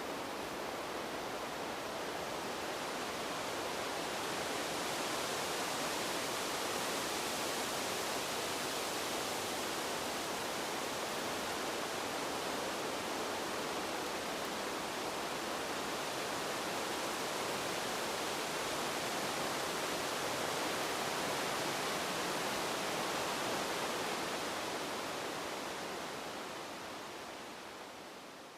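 Steady rushing wind, an even hiss with no distinct gusts, swelling slightly in the first few seconds and fading out near the end.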